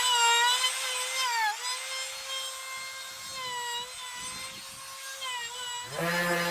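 Compact trim router with a round-over bit running at high speed while rounding over the edge of a wooden disc, a steady high whine that dips in pitch a couple of times as the bit takes load. About six seconds in it gives way abruptly to the lower, steady hum of a palm sander.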